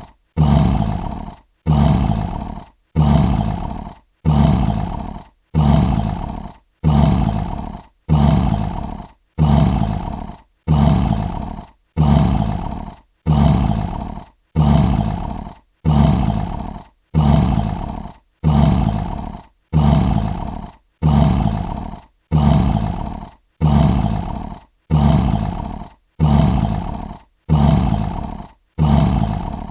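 A short lion roar repeated over and over at even spacing, about one every second and a quarter, each starting loud and fading away before the next.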